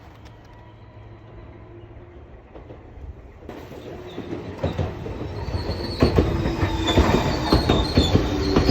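Train running on the rails and growing much louder from about three and a half seconds in, with high wheel squeal and repeated clicking over the rail joints.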